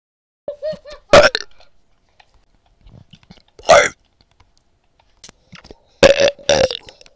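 A person burping loudly several times in a row, four separate burps a second or two apart, the last one longer.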